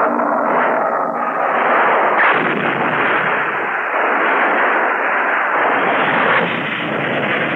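Giant-monster battle sound effects from an old film soundtrack: a loud, continuous rushing, blast-like noise, muffled by dull TV-broadcast audio.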